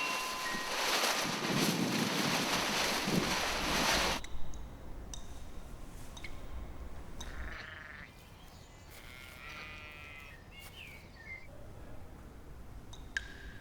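A loud steady rushing noise that cuts off suddenly after about four seconds, then a sheep bleating a few times, one bleat quavering, with a few light clicks.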